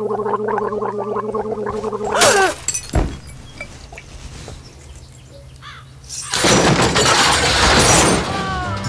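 A gurgling, bubbling sound for about two seconds, then a sharp clink and a thud. About six seconds in comes a loud crash of shattering and breaking that lasts about two seconds.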